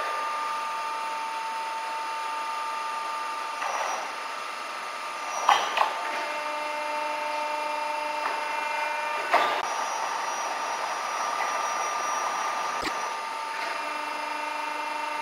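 Peddinghaus CNC-fed steel-working machine running with a steady whine, its tones shifting in steps, and a few sharp metallic clanks about five and nine seconds in, with a lighter knock near the end.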